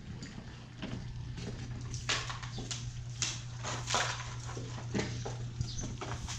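A litter of one-month-old Belgian Malinois puppies eating from metal bowls: scattered sharp clicks and clinks of the bowls and feeding, over a steady low hum.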